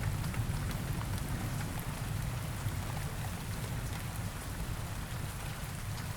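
Heavy rain falling steadily, with scattered drop ticks. The low rumble of a thunderclap dies away over the first second.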